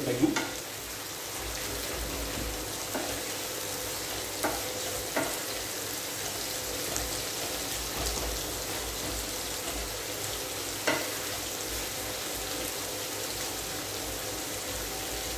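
Sliced onions sizzling in hot oil in a frying pan as they are stirred with a wooden spatula, which knocks lightly against the pan a few times. The onions are being fried until nicely browned.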